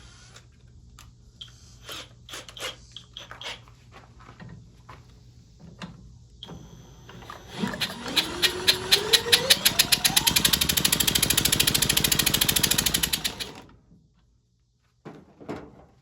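Power drill with a socket turning over a Briggs & Stratton Model Y engine for about six seconds, the drill's whine rising in pitch as it speeds up, with a fast, even pulsing from the engine as it spins, then stopping abruptly. Before it, a few clicks and knocks of tools being handled.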